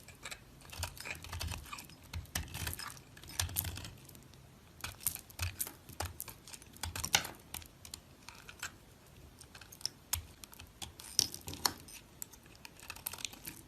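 Dry soap being cut: crisp, irregular crackling clicks, some in quick clusters, with short pauses between.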